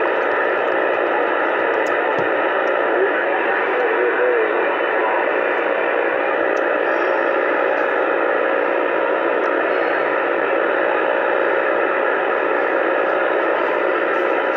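Uniden Bearcat CB radio on 27.285 MHz AM putting out steady static hiss through its speaker, with faint steady tones and a short wavering whistle about four seconds in.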